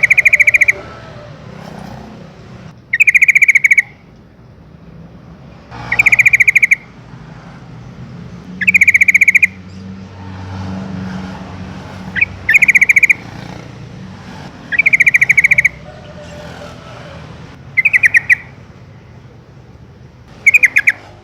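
Yellow-vented bulbul (trucukan) calling: short, loud bursts of rapid bubbling notes, about eight times, roughly every three seconds, with a faint low rumble between them.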